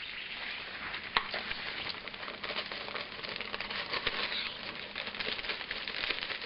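Butter melting in a hot pan, sizzling and crackling steadily as brown sugar is added, with one sharp click about a second in.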